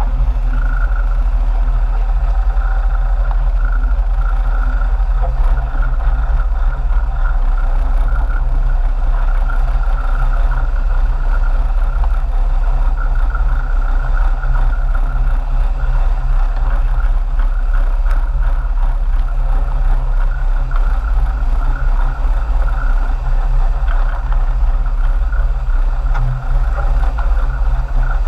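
Sportfishing boat's engines running at a steady drone, with no change in pace.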